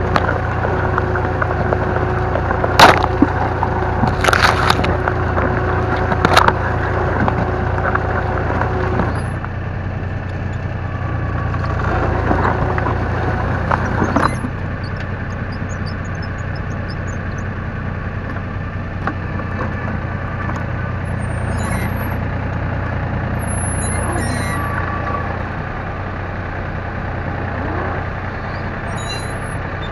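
A 1969 David Brown 780's 2.7-litre three-cylinder diesel engine running steadily under load while pulling a two-furrow plough, with soil and stubble crackling and scraping over the plough close by. Three sharp knocks come in the first several seconds, and the sound drops a little about nine seconds in.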